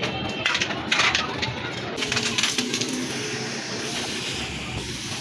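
Two sharp metallic clinks, then a steady hiss that starts about two seconds in.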